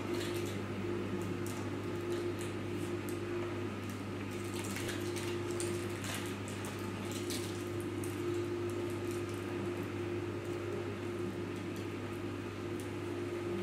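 Steady low hum with a few faint scattered clicks and ticks.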